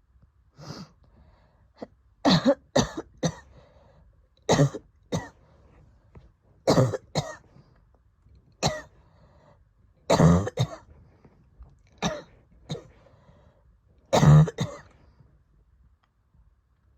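A person coughing repeatedly during an asthma attack after COVID. The coughs come in short fits of one to three, every second or two.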